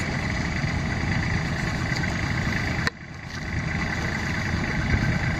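An engine idling steadily, with a sudden brief dip in level about three seconds in.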